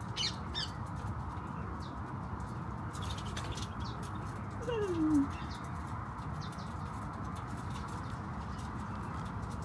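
Wild birds feeding together: a few short chirps near the start and one falling call about five seconds in, with scattered light clicks over a steady outdoor background hiss.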